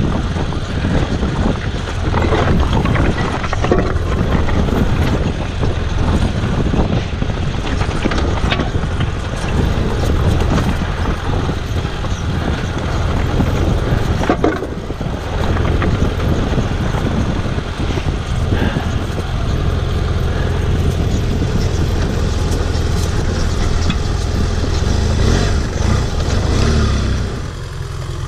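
BMW F800GS parallel-twin engine running at low speed over a loose rocky trail, with stones and gravel clattering under the tyres. Near the end the engine and clatter ease off as the bike slows.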